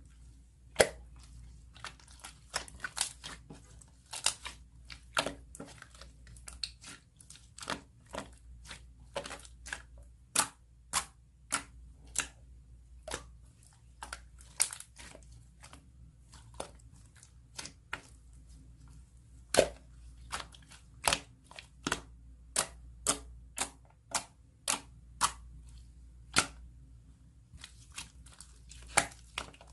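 Slime being squeezed and pressed by hand, making a run of sharp, irregular pops and clicks, about two to three a second, as air pockets in it burst.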